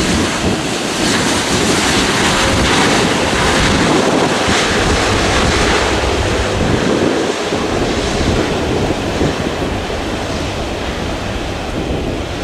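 Airbus A330-300's Rolls-Royce Trent 700 jet engines running at low power as the airliner rolls out after landing: a steady, loud rushing noise that eases slightly in the second half, mixed with wind buffeting the microphone.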